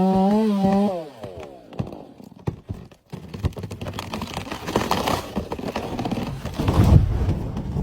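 A person's long yell, wavering and then falling in pitch, followed by a run of sharp cracks and rustling.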